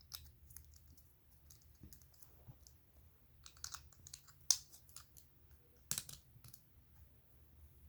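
Plastic Lego bricks clicking and tapping as they are handled and pressed onto a model: scattered small clicks, the sharpest about four and a half and six seconds in.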